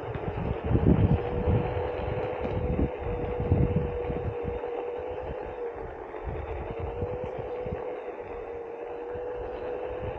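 Onewheel GT electric hub motor whining at a steady pitch while riding, with wind buffeting the helmet-mounted microphone in gusts.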